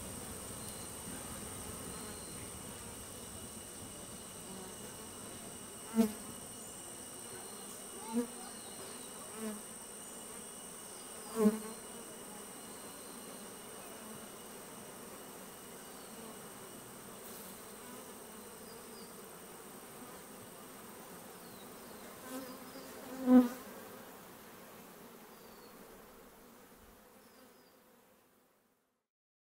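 Bees buzzing close past the microphone in six brief, louder passes, the last one the loudest, over a steady high drone of insects. The sound fades away near the end.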